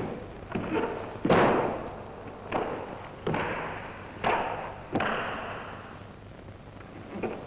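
A karateka performing a kata on a wooden dojo floor, each strike and step giving a sharp snap or thud that echoes in the hall. There are about seven of them at uneven intervals, the loudest about a second in.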